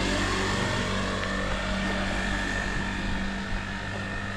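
A steady engine hum with a held, even pitch, slowly fading toward the end, from a motor vehicle running close by.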